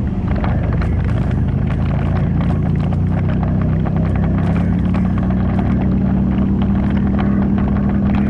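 ATV engine running under way, its pitch slowly rising over the last few seconds, with frequent short knocks and rattles.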